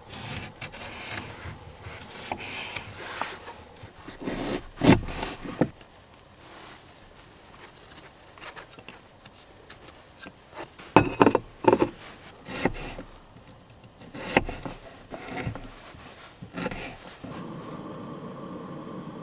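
Knife cutting a lemon and fresh ginger on a bamboo cutting board: scattered knocks and scrapes of the blade against the wood, loudest about five seconds in and again around eleven to twelve seconds. Near the end a steady hiss takes over from the aluminium kettle heating on the camp stove.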